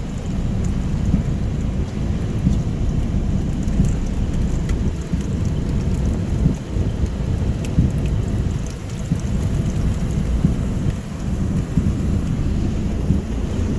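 Floodwater rushing: a steady, deep rush of noise, heaviest in the bass, with scattered faint ticks.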